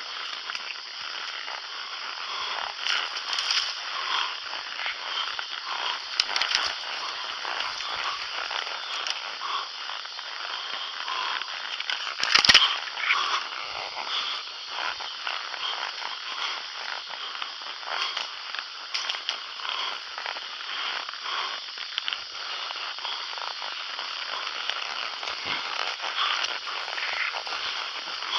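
Brush and branches crackling and snapping as someone pushes through a thicket, a dense run of small cracks with one louder sharp crack about halfway through.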